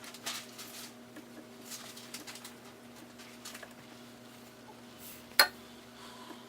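Small clicks and scrapes of hand tools working on a circuit board during desoldering, with one sharp click about five seconds in, over a steady low hum.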